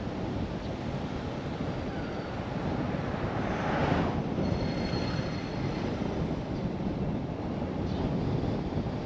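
Steady road and tyre noise from a car driving at low speed, with a brief swell of hiss about four seconds in.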